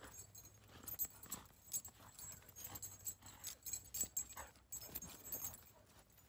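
Faint, irregular footsteps of a person and dogs walking over dry grass and dirt: soft crunches and ticks, a few a second.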